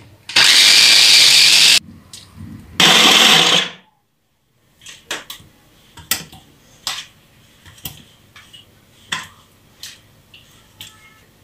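Electric hand blender with a chopper bowl run in two short pulses, one about a second and a half and the next about a second, chopping tomato pieces. After that come only scattered light plastic knocks and taps as tomato is handled into a food processor.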